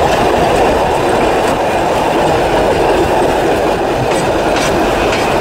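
Train running along the track, heard at an open window: a steady, loud rumble of wheels on the rails, with a few sharp clacks.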